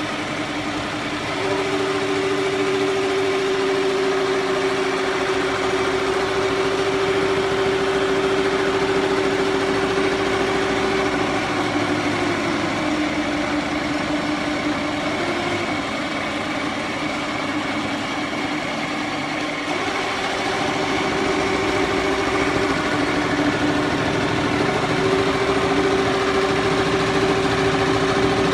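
Single-head He Feng embroidery machine running and stitching, a steady fast needle clatter over a motor whine that drops in pitch for a few seconds in the middle and then rises back.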